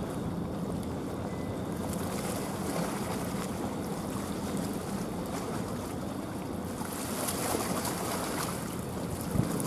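Wind rushing over the microphone and waves washing, with a faint steady low hum underneath and a few sharper wind buffets near the end.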